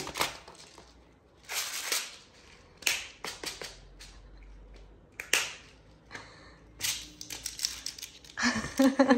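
Small plastic beads rattling and clicking against a clear plastic compartment bead organizer as hands rummage through them, in about six short clattering bursts.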